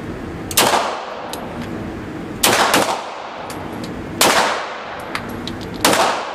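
Beretta M9 9mm pistol firing in an indoor range: five single shots about one to two seconds apart, two of them in quick succession near the middle, each followed by the room's echo.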